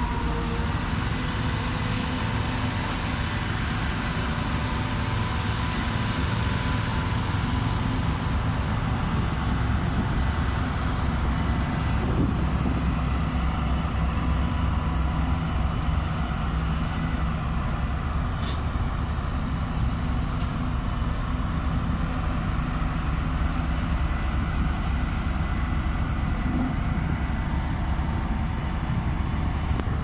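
Heavy construction-machinery engine running steadily at constant speed: a low, even engine hum with no revving or changes in pace.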